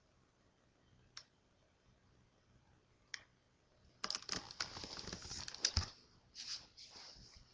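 Two single clicks, then from about four seconds in a few seconds of rubbing, knocking and clattering handling noise as the webcam is picked up and turned around.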